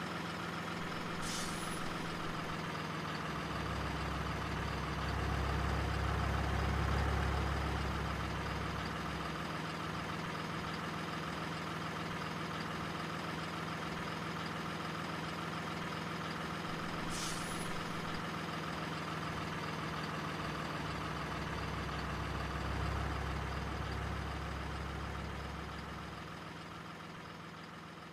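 Remote-control toy container truck's engine sound, a steady running note that swells deeper and louder twice as the truck drives, with two short high hisses and a fade near the end.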